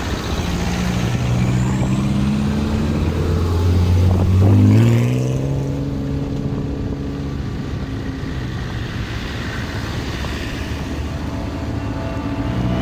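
Off-road 4x4 engines running as vehicles move along a gravel track. One engine revs up about four to five seconds in, then settles to a steady running note.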